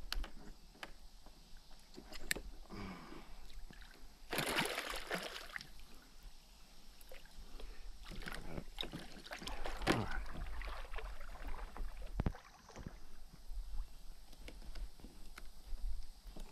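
Water splashing beside a kayak's hull, with a burst about four seconds in and more splashing around eight to ten seconds, among scattered knocks and clicks of fishing gear being handled on the kayak.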